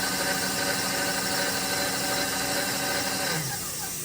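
Milling machine spindle running with a steady high whine, then winding down with falling pitch a little over three seconds in.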